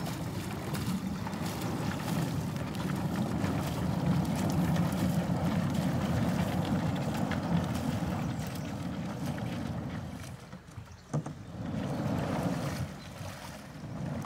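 Shallow river water sloshing and splashing around a man wading with a drift boat and around the boat's hull, with one short knock about three-quarters of the way through.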